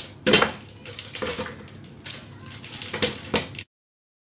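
Crinkling plastic wrapper of an Oreo cookie package being handled and pulled open, in several short crackly bursts, before the sound cuts off abruptly near the end.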